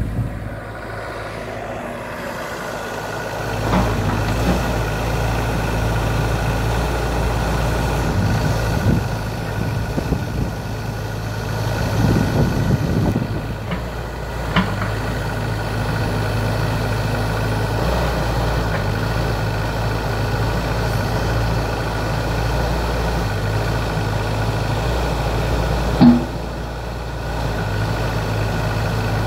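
Terex TC35 mini excavator's diesel engine running, its note shifting up and down as the boom, arm and bucket are worked hydraulically. A few short clunks come through, the loudest a sharp knock near the end.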